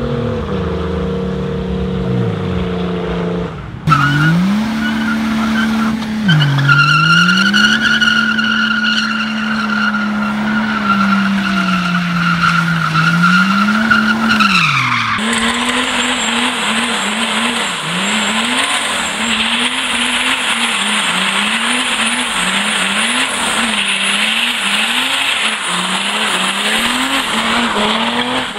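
Cars doing burnouts and donuts: engines held at high revs, the pitch swooping up and down, with tyres spinning and squealing. In the middle stretch the tyre squeal is a steady high screech; in the last stretch the engine note rises and falls about once a second over the hiss of the spinning tyres. Hard cuts come about 4 and 15 seconds in, where one car's sound gives way to another's.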